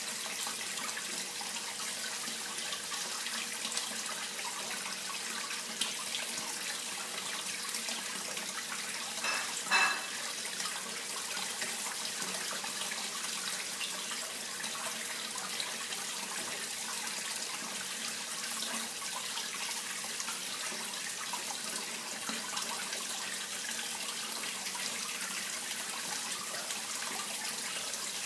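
Steady running water, an even rushing hiss. About ten seconds in, a brief louder pitched sound stands out over it.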